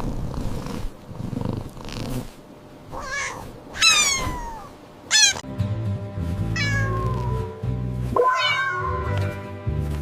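Cats meowing: a string of about six high meows, each falling steeply in pitch, over background music that comes in about halfway through.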